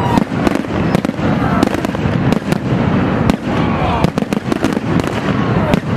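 Fireworks display: aerial shells bursting in rapid succession, sharp bangs and crackles coming several times a second.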